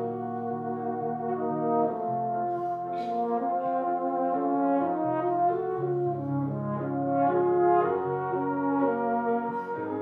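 Tenor horn and baritone horn playing a slow, lyrical duet in held, overlapping notes, over piano accompaniment.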